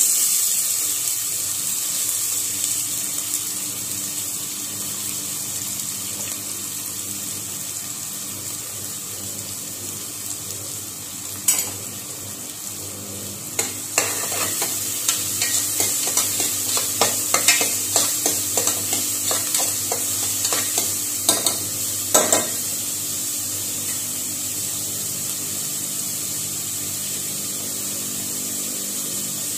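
Chopped onions hitting hot oil in an aluminium pressure cooker, sizzling at once and then frying steadily. From about halfway through, a metal spoon stirs them, clinking and scraping against the pot for several seconds.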